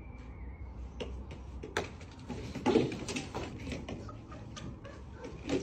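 A garden chair tipping over backwards with a man in it and clattering down onto patio paving, with a loud crash about two and a half seconds in and scattered knocks and scuffling around it.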